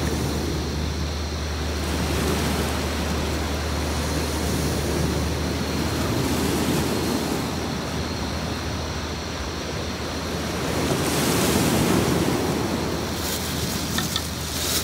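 Sea waves washing on a beach: a steady surf noise, with one wave swelling up and breaking louder about eleven seconds in.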